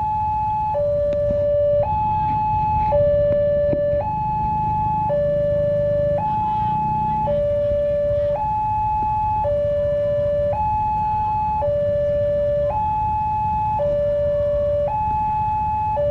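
Electronic level-crossing warning alarm sounding a two-tone signal: a loud steady tone alternating between a higher and a lower pitch, each held about a second, while the crossing is closed for an approaching train. A low rumble of idling engines runs underneath.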